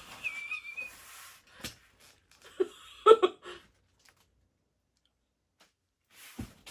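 A woman's short, muffled laugh about three seconds in, with faint rustling of a cardboard box before it, then a couple of seconds of dead silence.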